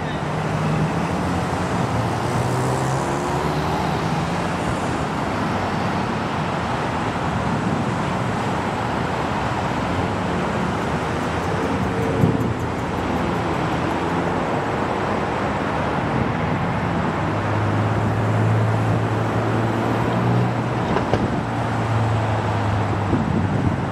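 Steady rumble of a twin-engine jet airliner's engines as it lands and slows on the runway, its engines running in reverse thrust, mixed with road traffic close by. A vehicle passes close about twelve seconds in, with a brief knock.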